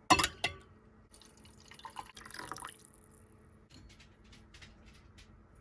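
Two or three sharp knocks, then about a second of liquid running or pouring, then a few light clicks: small kitchen sounds.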